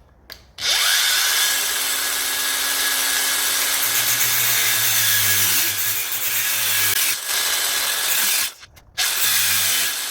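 Power tool, most likely an angle grinder with a cut-off disc, cutting through steel threaded bar. It starts about half a second in and runs loud and steady, stops briefly near the end, then cuts again.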